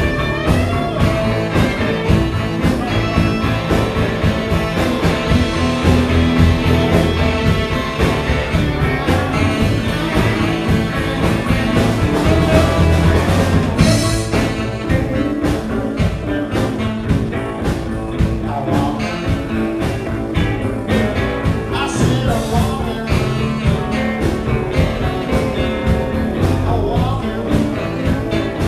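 Live blues band playing: saxophone over electric guitars, keyboard and a steady drum beat.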